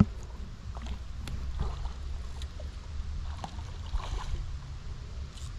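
Shallow stream water splashing and lapping, with a steady low wind rumble on the microphone and a short knock at the very start.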